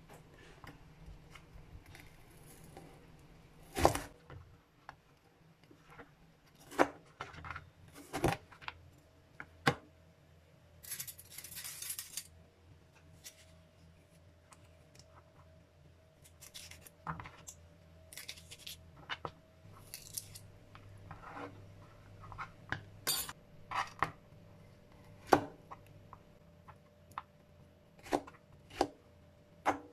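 Chef's knife cutting bitter melon on a plastic cutting board: irregularly spaced knocks of the blade on the board, with a short scraping rasp about eleven seconds in.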